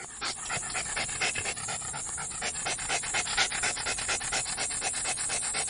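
Dog panting rapidly in a quick, even rhythm of about six breaths a second.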